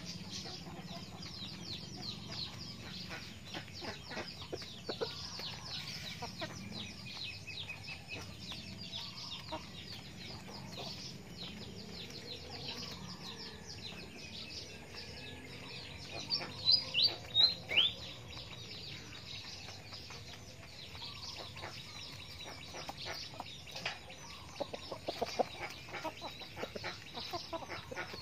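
Chickens, a rooster and hens, pecking grain off a sheet on the ground with many light, quick ticks, and clucking softly. About 17 seconds in, a quick run of four high, falling chirps is the loudest sound.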